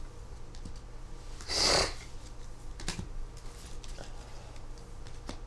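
A single short sniff about a second and a half in, with a few faint knocks of album cases being handled.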